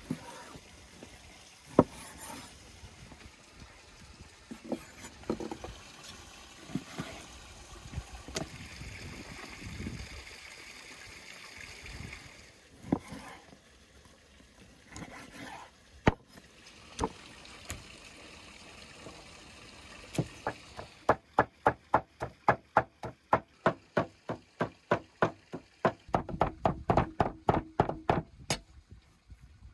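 Heavy cleaver cutting raw meat on a wooden board, with scattered knocks of the blade on the wood. About two-thirds of the way through it turns to fast, even chopping, three to four strokes a second, as the cleaver minces meat on a log chopping block.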